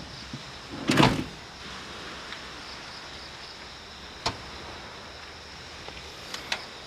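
Campervan doors being handled: a loud thump about a second in, then a sharp click and, near the end, two light clicks as the Nissan NV200's rear hatch is unlatched and lifted, over a steady background hiss.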